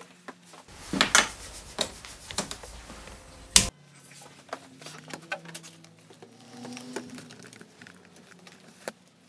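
Rumbling handling noise with clicks for about three seconds, ending in a sharp click, then scattered light clicks and rustling as hands work the plastic wiring connectors at a scooter's handlebar.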